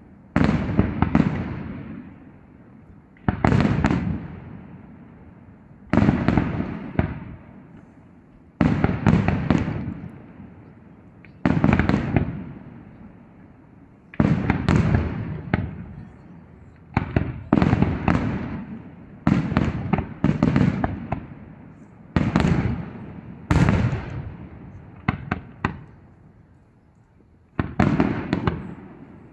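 Aerial fireworks shells bursting in a professional display, a sudden bang every second or two, sometimes two or three in quick succession, each fading away over about a second.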